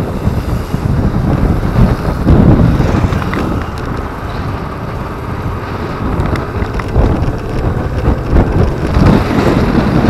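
Heavy wind buffeting on the microphone of a camera riding on a moving motorcycle, gusting louder and softer, over road and traffic noise.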